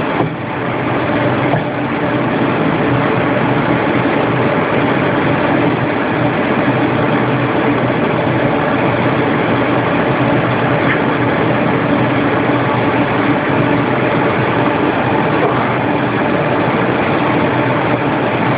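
Steady machinery running: a constant drone with a low hum that does not change.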